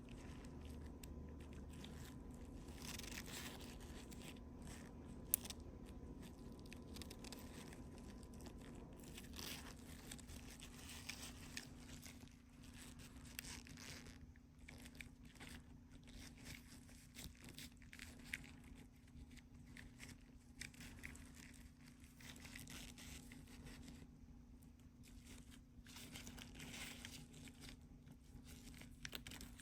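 Faint, scattered clicks and scrapes of small metal tools and parts being handled while working on a Honda ignition lock cylinder, with one sharper click about five seconds in. A steady low hum runs underneath.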